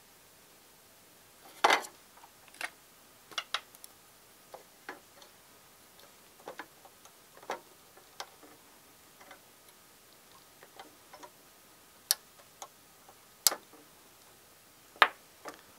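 Small clicks and taps at irregular intervals from parts, tools and a circuit board being handled on a soldering bench, with a few sharper clicks standing out about 2 seconds in and near the end.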